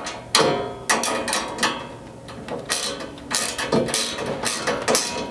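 Metal hand tools clicking as a hex key and a small wrench tighten a button-head bolt and nylock nut on a support cable: a string of short, sharp clicks, two or three a second.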